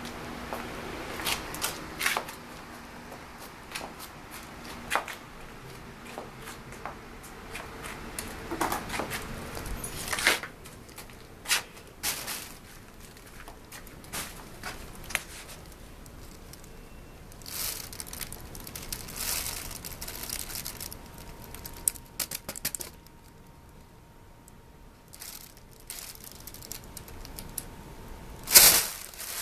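Irregular rustling, crinkling and light knocks of handling, with a louder crinkling rustle near the end.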